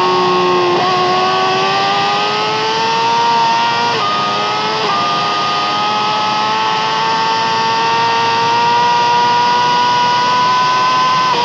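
Yamaha R6's 600 cc inline-four engine at high revs under hard acceleration, heard onboard. The pitch dips briefly about one, four and five seconds in as it shifts up, then climbs slowly through a long stretch.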